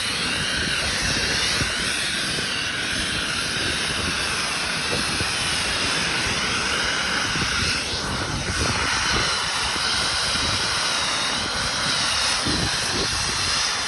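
Snowmaking gun blowing at full output: a loud, steady rush of air and spray with a wavering high whine over it.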